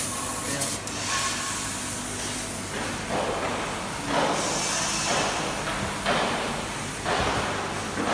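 500 W CNC fiber laser cutting machine cutting sheet metal: a steady machine hum under the hiss of the assist gas, which rises in a surge about once a second.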